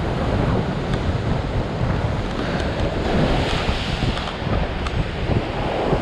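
Ocean surf breaking and washing over a rock ledge, a continuous rushing wash, with wind buffeting the microphone.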